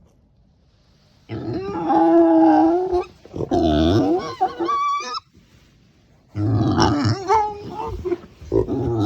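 Micro pig giving an unusual run of drawn-out, wavering whining calls. There are about four calls, each a second or two long, with short pauses between them.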